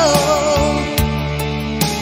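Background pop love song: a sung note trails off about half a second in, then the band carries on with guitar and drum hits.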